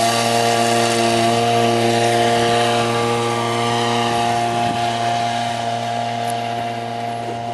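Small engine and ducted pusher propeller of an unmanned hang-glider-wing trike aircraft running steadily at high power through the take-off and climb. The engine note slowly fades over the last few seconds as the aircraft flies away.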